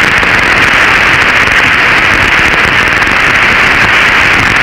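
Loud, steady crackling hiss of radio static on an open voice radio channel.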